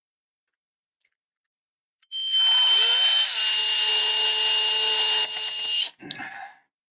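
Electric drill with a 2.5 mm bit drilling a screw hole through a project enclosure. It starts about two seconds in, rises briefly in pitch, then runs steadily with a high whine for about four seconds before stopping suddenly. A short rustle follows as the bit is withdrawn.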